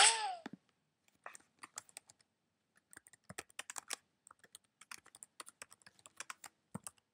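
Bullet ricochet sound effect: a sharp crack with a short falling whine that dies away within half a second, followed by a long run of faint, irregular clicks.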